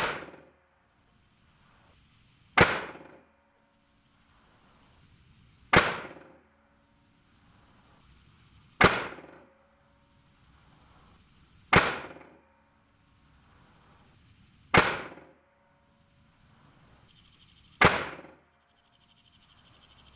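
Custom-built .22 PCP air rifle firing 42-grain slugs at about 294 m/s: seven sharp shots roughly three seconds apart, each dying away within about half a second.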